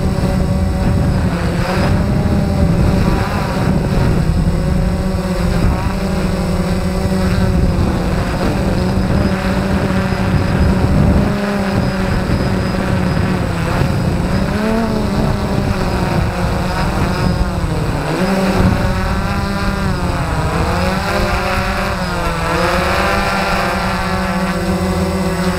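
Electric motors and propellers of a small radio-controlled aircraft, heard from its onboard camera: a steady buzzing hum whose pitch dips and rises several times in the second half as the throttle changes while it comes down near the ground.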